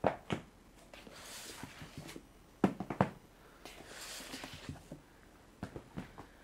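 Cardboard boxes being handled and slid on a wooden desk: a few sharp knocks and thumps as they are moved and set down, the loudest cluster about halfway through, with soft scraping slides in between.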